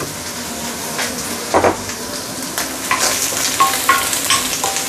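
Prawn heads and shells sizzling in hot oil in a stainless steel wok on high heat, stirred with a wooden spatula that scrapes and knocks against the wok. The frying grows denser about a second in.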